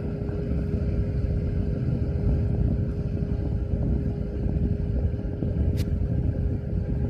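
Blu Breeze portable air conditioner's fan running: a steady motor hum under a loud, low rush of air, with a single sharp click about six seconds in.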